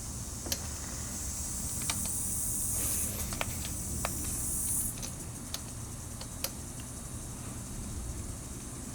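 Scattered light metal clicks and taps of a turbo line and its fitting being worked into place by hand, over a steady high hiss that stops about five seconds in.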